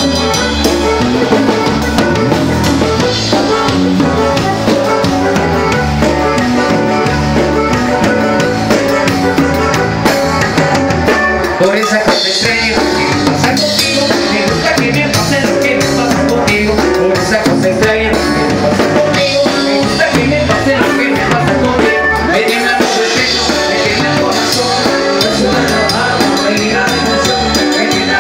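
Live band playing a cumbia loudly, with congas and other percussion keeping a steady beat.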